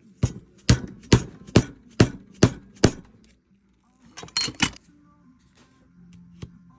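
A hammer strikes seven times at about two blows a second, setting a copper rivet and burr on a leather belt loop. A short scraping rustle follows a little after halfway.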